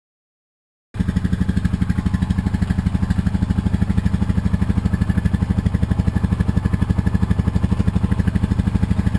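Honda TRX420 ATV's single-cylinder four-stroke engine idling steadily, a rapid even pulse of about a dozen beats a second, starting suddenly about a second in.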